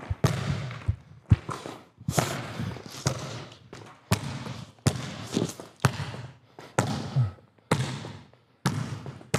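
Basketball bouncing on a hard indoor court floor, dribbled at about one bounce a second, each bounce echoing in the large gym.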